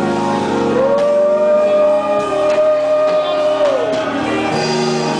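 Live church worship music: instruments holding sustained chords while a voice sings one long held note for about three seconds, sliding down in pitch at the end.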